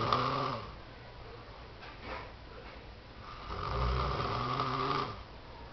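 A man snoring in his sleep. One snore trails off in the first half-second, and a second snore of about two seconds starts about three and a half seconds in.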